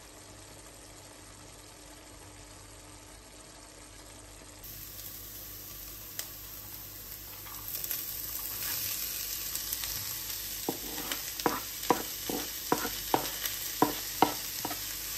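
Food frying in a pan, a steady sizzle that grows louder partway through. In the second half a spoon stirs it, knocking against the pan about three times a second.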